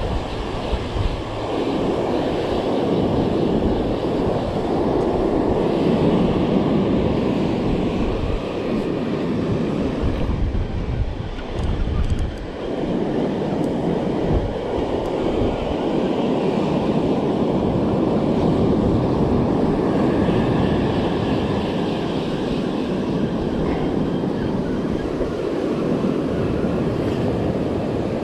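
Wind buffeting the microphone over the wash of breaking surf, a steady low rushing noise that eases briefly about halfway through.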